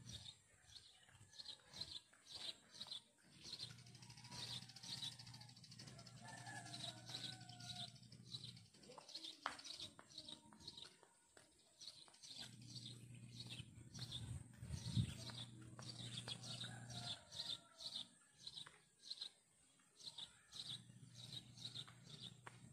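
Faint outdoor quiet with a small bird chirping over and over, about three short high chirps a second, and a low hum that fades in and out.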